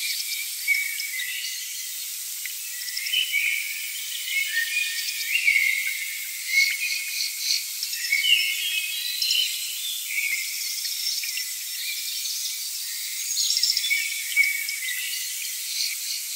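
High-pitched nature chorus of chirping and trilling insects and birds, with many short overlapping calls and fast trills.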